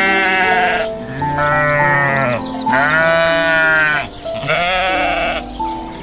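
Goats bleating: four long calls one after another, each rising then falling in pitch, over background music.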